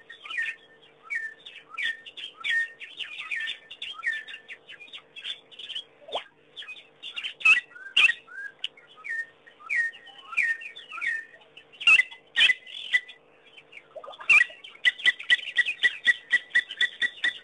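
Several birds calling: a busy mix of short chirps and whistled notes, some sharp and clicking, then from about fourteen seconds in a fast, even run of short repeated notes, several a second.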